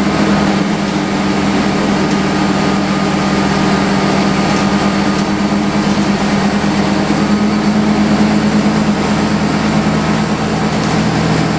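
Inside a MAN 11.220 midi bus: a steady, loud drone of its diesel drivetrain and its extraordinarily loud air-conditioning unit, with a constant low hum and no sudden changes.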